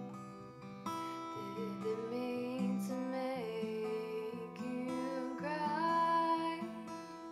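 A Takamine acoustic guitar played in a slow, quiet pattern. A woman's voice sings a long wavering line over it from about a second and a half in to near the end.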